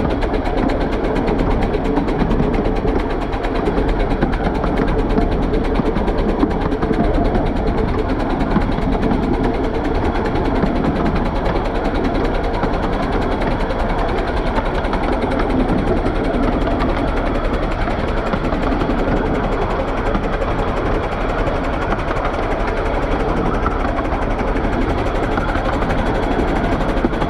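Bure Valley Railway No. 8 'John of Gaunt', a 15-inch gauge steam tank locomotive, working hard with a heavy ten-coach train: rapid, continuous exhaust beats over a steady low rumble.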